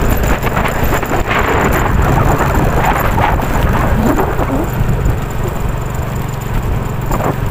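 A motor vehicle's engine running with a steady low rumble, mixed with wind noise on the microphone.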